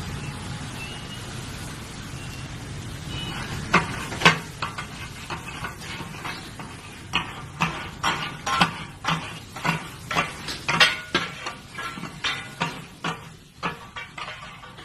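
Oil and spice paste sizzling on a flat street-food griddle. From about four seconds in, metal spatulas strike and scrape the griddle in sharp, ringing clacks, about two a second, irregular.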